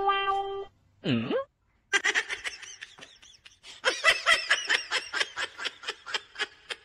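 A person laughing in a long run of quick bursts, getting louder about four seconds in. A short steady tone and a brief swooping sound come just before it.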